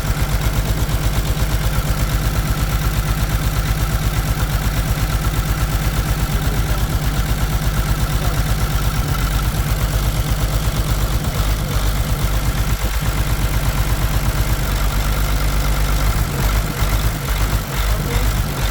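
Caterpillar diesel engine idling steadily with an even, rhythmic pulse.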